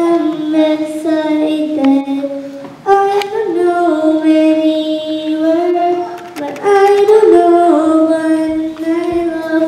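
A young girl singing a slow song into a microphone, one voice holding long, steady notes that glide from one pitch to the next.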